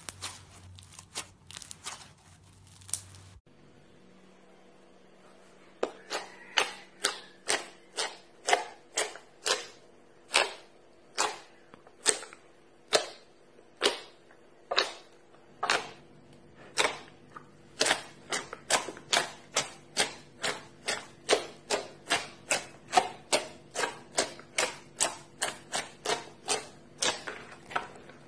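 Fingers kneading and poking a basin of white, foamy fluffy slime, making sharp clicking pops about two a second. Near the start, glitter slime crackles as a hand squeezes it.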